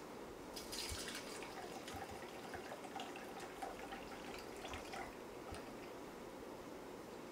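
Shaken kamikaze cocktail poured from a Boston shaker tin into a martini glass: a faint, steady trickle of liquid with a few light clicks.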